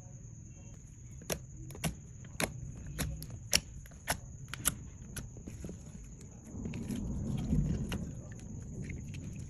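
Slime being handled and pressed, giving a run of sharp clicking pops about two a second, then a low rumbling handling noise near the end.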